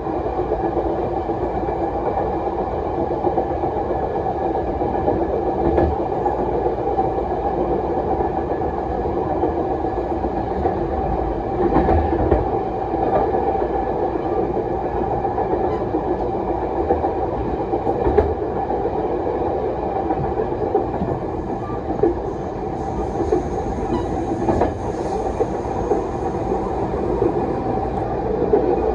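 Chu-Kuang express passenger carriage running along the line, heard from inside the rear car: a steady rumble of wheels on rail with a constant running hum, broken by a few sharp knocks.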